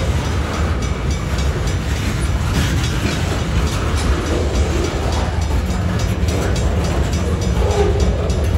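Freight cars of a Union Pacific manifest train rolling slowly past: a steady low rumble of steel wheels on rail with repeated clicks over the joints.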